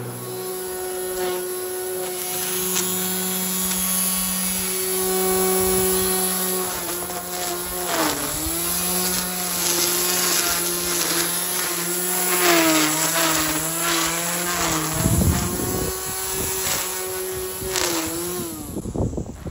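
Electric string trimmer running with a steady whine, its pitch dipping briefly several times as the line bites into grass and weeds.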